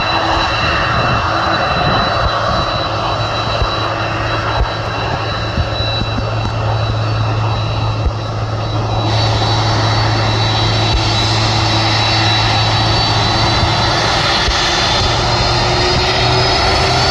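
Boeing 747-400's four turbofan engines whining at taxi power, with a deep hum underneath. The whine rises in pitch over the last few seconds as the engines spool up.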